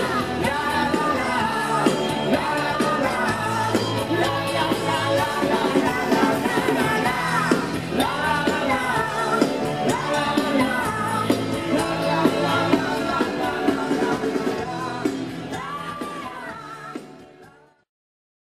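Live rock band with a lead singer playing an 80s-style song. The music fades out about two seconds before the end.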